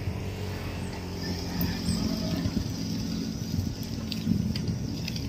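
Steady low rumble of riding a bicycle: wind buffeting the phone's microphone and tyres rolling on the road, with a few faint clicks.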